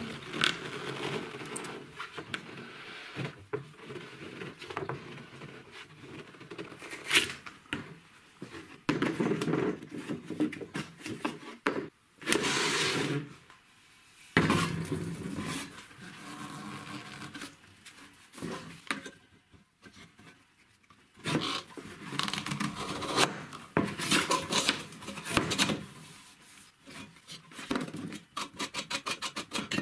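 A homemade strap wrench, a rubber timing belt in a square steel tube, being worked on plastic pipe. The belt and plastic rub and scrape, and metal knocks and clicks as parts are handled on a wooden bench, with a few pauses. Near the end comes a run of quick, even clicks.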